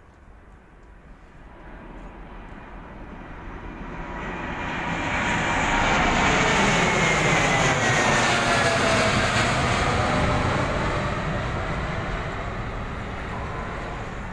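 Boeing 787-8 Dreamliner's twin turbofan engines at takeoff power as the airliner climbs out overhead. The jet noise builds over about six seconds, is loudest as the plane passes directly above, with a whine that drops in pitch as it goes over, then fades as it climbs away.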